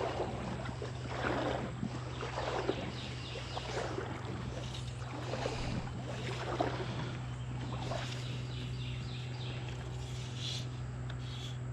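Splashing steps of a person wet-wading upstream through a shallow creek, one sloshing step every second or so.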